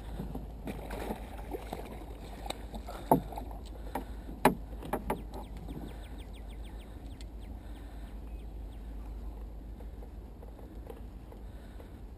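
Paddling a plastic sit-on-top kayak: water sloshing around the paddle and hull, with two sharp knocks about three and four and a half seconds in, a few lighter ones around them, and a quick run of faint ticks just after the middle.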